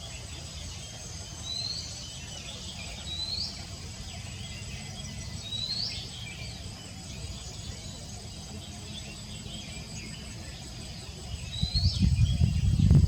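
An owlet gives short rising calls, four in all, a few seconds apart, over a faint steady high insect whine. Near the end a loud low rumble swells up.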